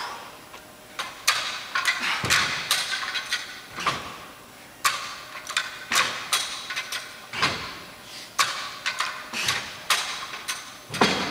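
Block-style dumbbells knocking back down onto the floor during push-up-and-row reps: a string of sharp clacks and thuds, often in pairs, about one or two a second.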